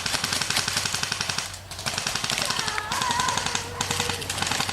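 Airsoft guns firing in full-auto bursts: a rapid, even rattle of about a dozen shots a second, with a brief break about a second and a half in.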